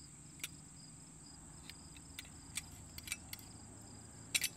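Steady high-pitched insect trilling, with scattered light clicks and taps of a utensil and ceramic bowl against a ceramic plate as noodles are arranged, a small cluster of them near the end.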